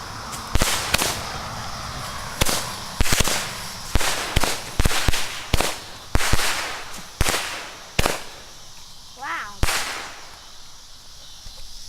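Consumer fireworks going off in a rapid, irregular string of about fifteen sharp bangs, some followed by a brief hiss, thinning out and stopping near the end.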